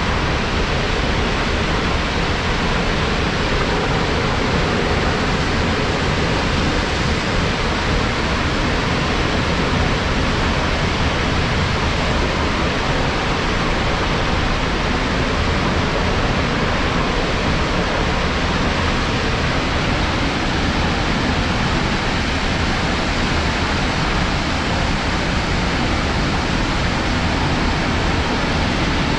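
Steady, unbroken rush of fast-moving water.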